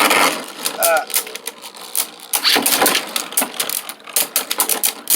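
Several Beyblade Burst spinning tops spinning and clashing in a stadium: rapid, irregular clicks and knocks as the tops strike one another and the stadium walls.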